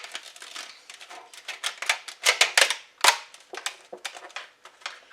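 Thin clear plastic cover of a store-bought graham cracker pie crust being pressed on, crinkling and clicking in a quick run of sharp crackles and snaps, loudest a little past halfway.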